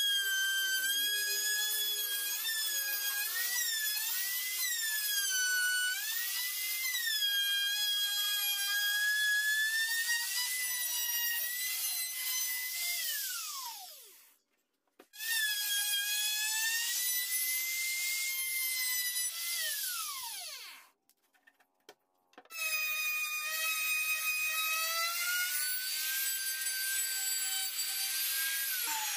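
Makita compact trim router running at high speed, a high-pitched whine whose pitch dips and wavers as the bit cuts a circular groove through plywood. Twice the motor winds down to a stop and then starts up again.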